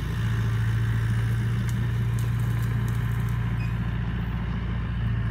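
Crawler bulldozer's diesel engine running steadily as the machine drives off through brush: a low, even drone with a few faint clicks about two seconds in.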